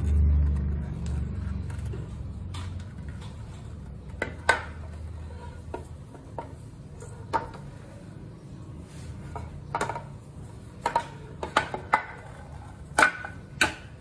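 Clicks and knocks of a hand handling and tapping the plastic cover and metal housing of a Siemens SQM40 servo actuator, scattered and irregular, coming more often in the second half, over a steady low hum.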